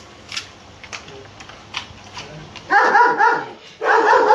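A dog barking in two quick bursts of rapid barks, about two-thirds of the way in and again near the end.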